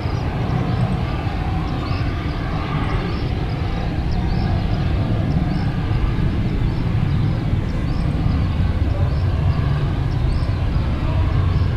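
Distant Airbus A320-200 airliner's jet engines running at low taxi power as it turns on the runway: a steady low rumble.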